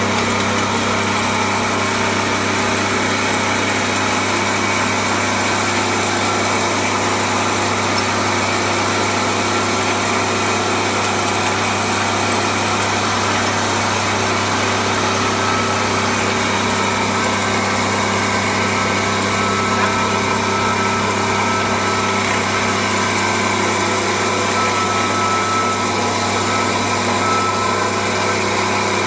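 Coffee pulverizing mill running steadily, a constant machine hum with a strong low drone and hiss on top.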